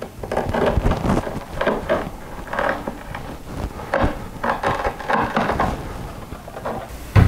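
Utility knife scraping and cutting along the edge of non-slip grip tape on a plywood jig: a quick run of short scraping strokes, about a dozen, then a heavy thump near the end.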